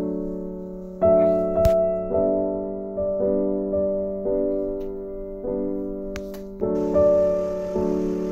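Background music: a slow, gentle solo piano piece, notes and chords struck about every half second and left to ring out.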